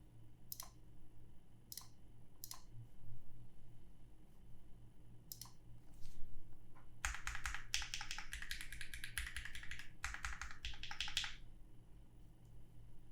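GHS.JEM Blanc prototype mechanical keyboard with lubed BuiltByNim linear switches in a carbon fibre plate and GMK keycaps. A handful of single keystrokes come first, then a fast burst of typing lasting about four seconds, which stops near the end.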